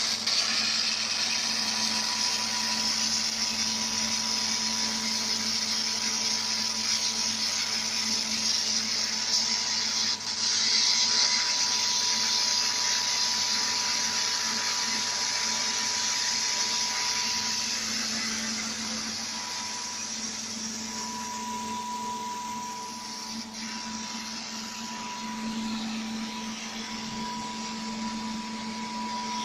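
Steady whirring machine noise of a robotic fiber laser welding station, with a high hiss, a thin steady whine and a low hum, easing off a little partway through.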